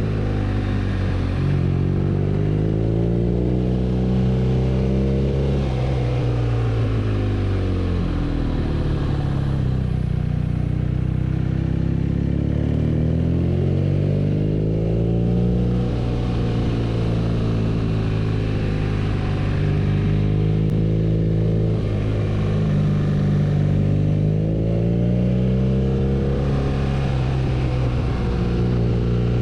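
BMW R nineT's 1170 cc boxer twin engine running under way, its revs rising and falling in smooth sweeps several times as the rider opens and closes the throttle.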